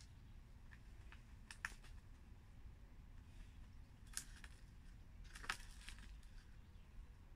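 Faint, scattered short clicks and rustles of fingertips pressing seeds into compost in a plastic seed-tray, the strongest about four and five and a half seconds in, over a faint low rumble.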